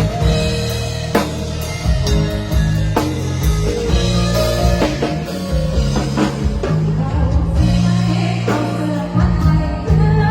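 Thai rot hae band playing a song through a loud sound system. Drum kit hits sit over a heavy bass line, with guitar and a singer's voice on top.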